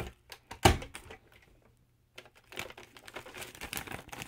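A FoodSaver vacuum sealer's pump hum cuts off at the very start, then a single sharp click comes about half a second in. From about two seconds in the plastic vacuum bag crinkles and crackles as it is handled.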